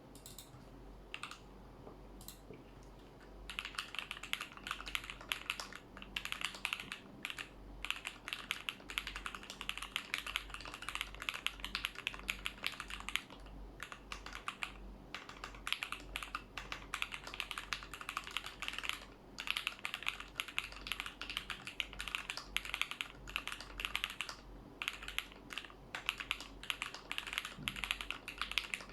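KBDfans Vulcan Maja mechanical keyboard with Jwick Red switches being typed on: a few scattered key presses, then from about three seconds in a fast, continuous stream of keystrokes with a few short pauses.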